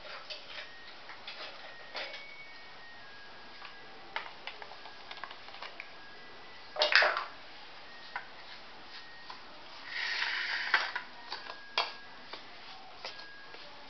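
Scattered light clinks and taps of steel utensils and dishes, with a louder clatter about seven seconds in. From about ten seconds in, a steel spoon scrapes and stirs a thick semolina-and-curd batter in a stainless steel bowl, with clicks against the bowl.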